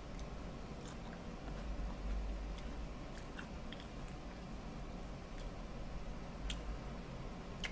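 A person chewing a mouthful of rice, with scattered small mouth clicks and a sharper click about six and a half seconds in.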